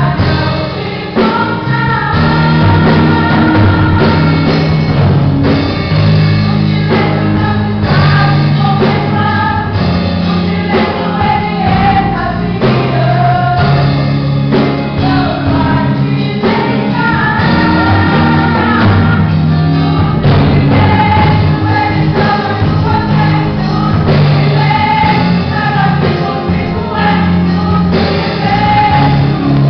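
A women's vocal group singing a gospel song together into microphones, over held low notes of an instrumental backing.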